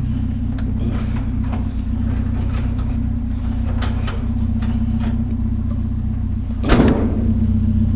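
A vehicle engine idling steadily, with scattered light knocks and one loud clank a little before the end.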